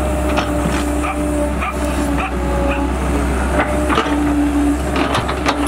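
Cat E120B excavator's diesel engine running steadily under load, with a steady hum that fades in and out as the machine works, and short knocks and clanks from the bucket and tracks digging in mud.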